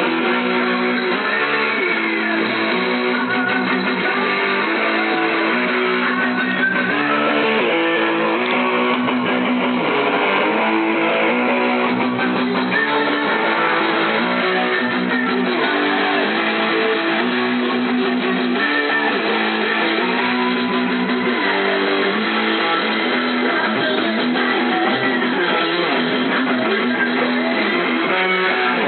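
Electric guitar music, steady and loud, with a short riff repeating over and over.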